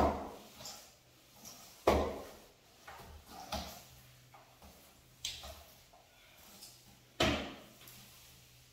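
Sharp knocks and clunks from cleaning work in a tiled shower. There are three loud ones, at the start, about two seconds in and about seven seconds in, with softer knocks between, each with a short echo off the hard walls.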